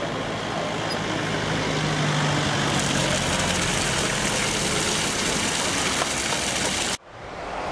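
Water rushing through an overground street hydrant as its valve is opened, gushing and hissing out of an open outlet onto the road. The rush grows louder and brighter about three seconds in, a car passes, and it cuts off abruptly near the end.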